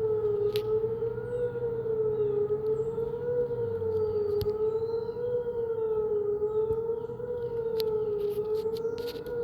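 Whelen WPS-2902 electronic fire siren sounding a wail tone, its pitch wavering slowly up and down, for a fire call.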